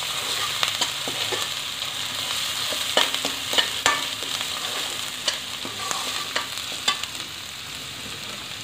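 Onion and ginger-garlic paste sizzling in hot oil in a stainless steel kadai, with a metal slotted spoon scraping and clicking against the pan as it is stirred.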